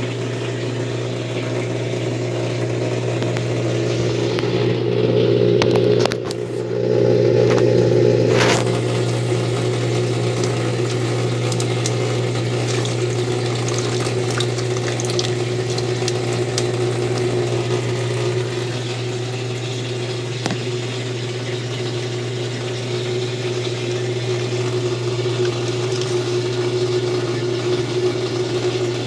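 Consul Facilite 10 kg washing machine running through its rinse-and-spin program: a steady mechanical hum that surges louder for a few seconds about five seconds in, with a couple of sharp clicks.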